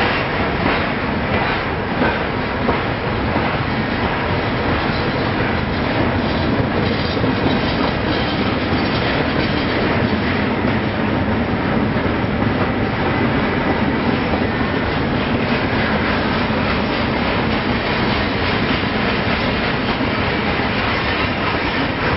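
Freight train cars rolling past close by: the steady noise of steel wheels running on the rails, with a faint regular clicking of the wheels.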